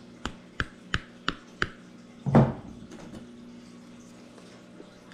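Liquid silicone mold-maker being poured from its bottle into a glass measuring cup, glugging: five short glugs about three a second, then one louder knock about two seconds in.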